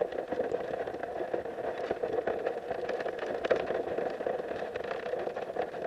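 Underwater creek ambience recorded beside a crayfish trap: a steady, muffled water noise with many faint crackles and clicks scattered through it.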